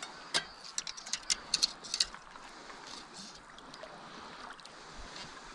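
A hooked trout splashing and kicking at the surface as it is drawn to hand in shallow water: a run of quick, sharp splashes in the first two seconds, then only the soft wash of the river.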